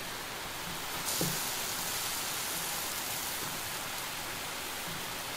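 Stuffed cabbage wedges simmering in their braising liquid in a black skillet: a steady sizzling hiss, louder from about a second in, as the liquid boils down.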